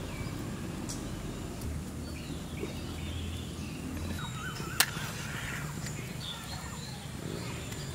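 Birds chirping and calling over steady background ambience, with one sharp click a little after the middle.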